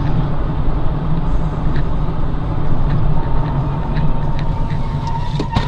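Car driving on a city street, heard from inside the cabin: a steady low engine and road rumble with a few light clicks. About three seconds in, a thin high steady tone sets in and grows louder, and a sharp knock comes just before the end.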